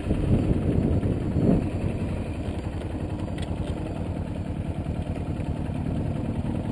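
Motorcycle engine idling steadily with an even low pulse as the bike stands still. It is louder and rougher for the first second or so, as the bike comes to a stop.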